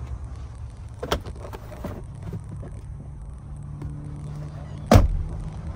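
The front center console lid of a 2016 Ford F-150 Lariat being unlatched and lifted, with a few sharp clicks about one and two seconds in. A loud thump comes about five seconds in, over a steady low hum.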